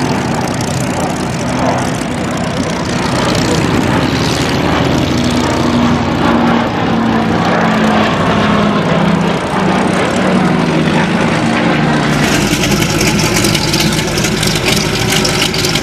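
Lockheed P-38 Lightning's twin Allison V-12 engines running in a low fly-past, with steady engine tones. About twelve seconds in, it gives way to the lower, rougher, rapidly pulsing sound of a Republic P-47 Thunderbolt's Pratt & Whitney R-2800 radial engine running as it taxis.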